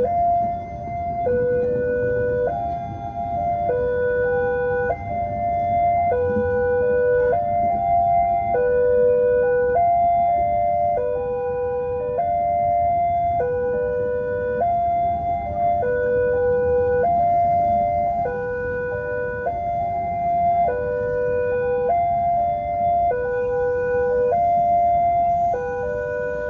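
Railway level-crossing warning alarm sounding an even two-tone hi-lo pattern, each note held a little over a second, over a low rumble of road traffic.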